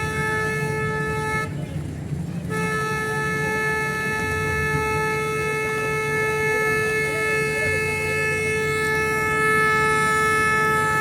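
A horn sounding one steady, unchanging note: a short blast of about a second and a half, then after a one-second break a long held blast, over a low background rumble.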